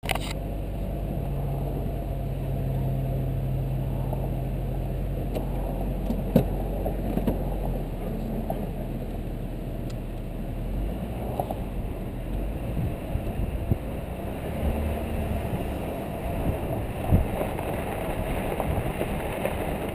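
2013 Jeep Wrangler JK's 3.6-litre V6 running steadily, heard from outside the open driver's side. From about halfway through it becomes gusty wind noise on the microphone with a few knocks and rattles as the Jeep drives over the sand track.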